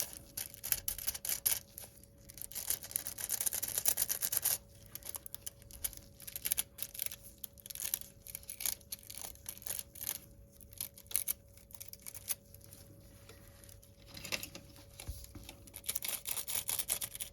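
Scratchy rubbing, crinkling and small clicks as nail transfer foil is pressed and rubbed onto a plastic practice nail tip with gloved fingers, in dense bursts at the start and near the end with sparser clicks between. A faint steady hum runs underneath.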